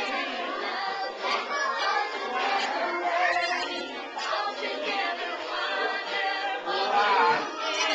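A group of children and women singing together, many voices overlapping.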